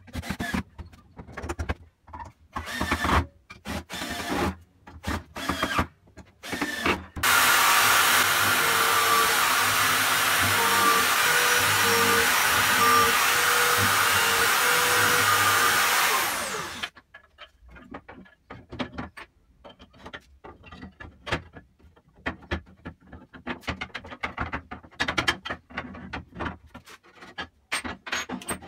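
A cordless drill driving screws into wood in short bursts. About seven seconds in, a drill mounted in a drill stand runs continuously for about nine seconds as it bores through a wooden slat. Near the end, loose wooden pieces clatter and knock as they are handled on the bench.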